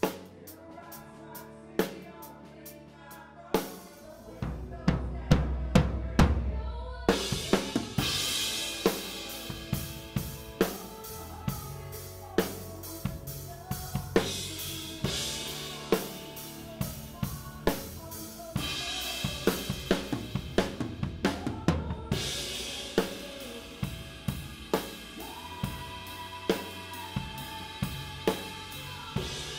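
Live drum kit (1972 Ludwig Butcher Block maple shells, Istanbul Mehmet cymbals) playing a country ballad with the band, in a floor-tom-heavy mix. Sparse kick and snare hits at first, a run of heavy low drum hits about four seconds in, then cymbals open up over a steady beat that eases off in the middle and builds again near the end.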